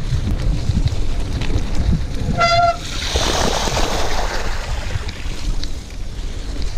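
Mountain bike ridden along a trail with wind rumbling on the microphone. About two and a half seconds in there is a brief high squeal, followed by a second or so of hissing spray.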